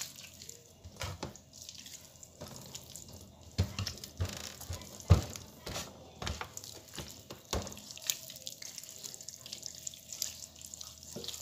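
Hands rubbing marinade into raw chicken pieces in a metal tray: wet squelching with irregular knocks and taps against the tray, the loudest about five seconds in.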